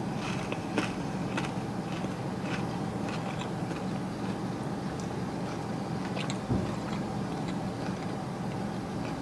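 Close-up chewing and biting of crunchy food, probably the breaded spicy chicken tenders, heard as irregular crackly clicks over a steady low hum. There is one low thump about six and a half seconds in.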